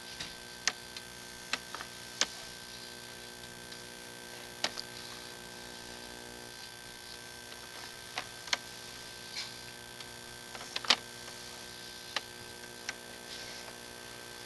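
Sewer inspection camera rig: a steady electrical hum with about a dozen sharp clicks at irregular intervals, the loudest near the end.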